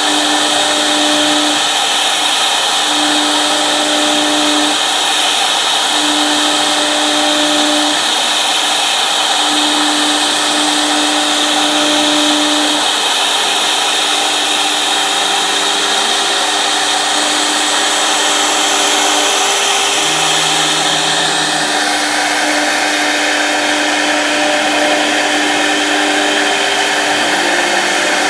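A 1325 CNC router running: a loud, steady hiss and whine from the spindle and cutter, with a hum that starts and stops every second or two.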